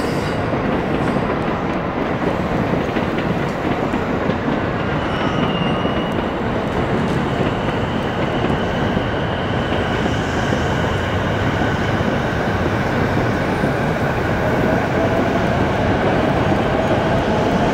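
Electric trains running through the station tracks: a steady rumble of wheels with faint high squeals, and a rising motor whine near the end.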